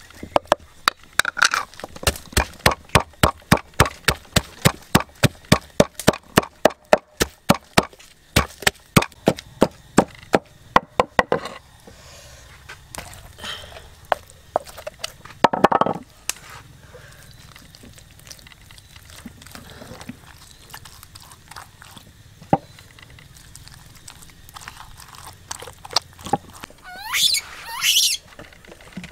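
Rapid chopping with a knife on a cutting board, about four even strokes a second for roughly ten seconds, then a few scattered knocks. Near the end come two short, sharply rising squeaks.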